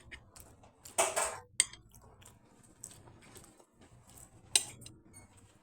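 Cutlery clinking and scraping against a plate or dish in scattered short strikes, the louder ones about a second in and again near four and a half seconds.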